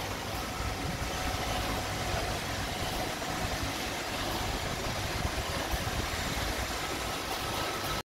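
iRobot Roomba 780 robot vacuum running: a steady whir of its vacuum motor and brushes with a faint high whine as it drives along the wall.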